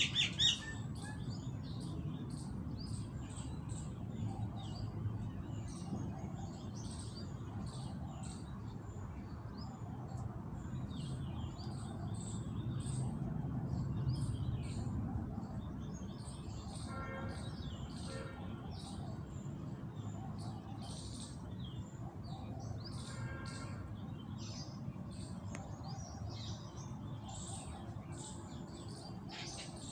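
Many small birds chirping over a low steady background noise, with a couple of brief pitched calls standing out about halfway through and again later.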